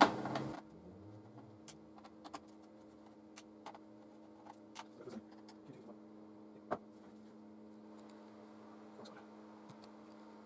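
A screwdriver and small screws handled on a TV power supply board: a sharp click at the start, then scattered faint clicks and taps, one louder a bit past halfway, over a faint steady hum.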